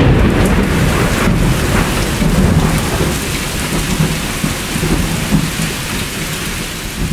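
Steady heavy rain with rumbling thunder, a storm sound effect laid under a logo animation.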